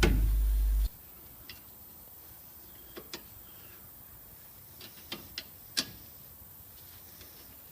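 A few light metallic clicks and taps, scattered irregularly over several seconds with the sharpest about two-thirds through, from brake parts being handled while the new rear pads and caliper are fitted.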